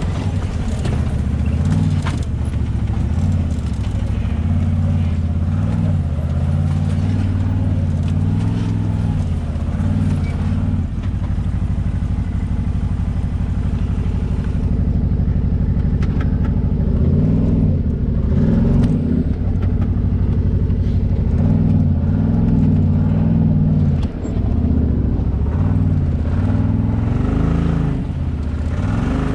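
Can-Am Maverick Sport XRC UTV's Rotax V-twin engine running while the machine crawls over rocks, the revs rising and falling again and again, with a steadier stretch about halfway through.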